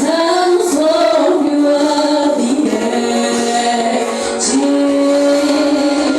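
Worship song with a woman singing held, gliding notes over musical accompaniment.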